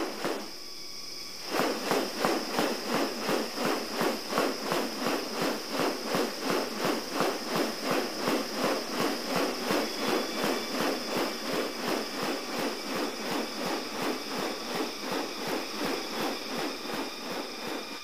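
A male superb bird-of-paradise's courtship display: a fast, even run of sharp clicks, about three a second, starting about a second and a half in, over a steady high insect drone.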